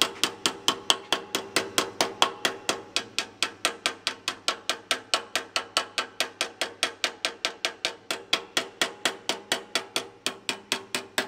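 Small ball-peen hammer tapping steadily on a Honda del Sol's steel exhaust pipe at a repaired joint, about four or five quick blows a second, each leaving a short metallic ring from the pipe.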